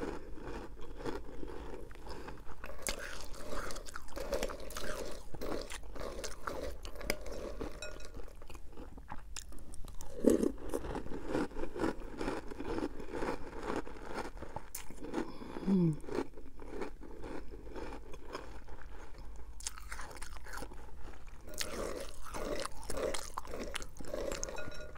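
Close-up chewing of a mouthful of Cap'n Crunch's Christmas Crunch cereal in milk: a steady run of small wet crunches. Near the end a metal spoon goes back into the glass bowl.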